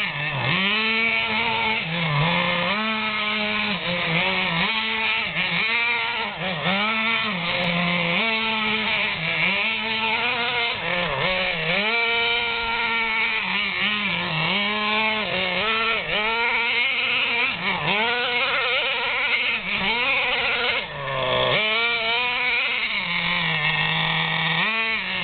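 Radio-controlled monster truck's small combustion engine revving up and down over and over as it is driven on snow. The pitch climbs and falls every second or two, then dips briefly and settles into a lower, steadier running note near the end.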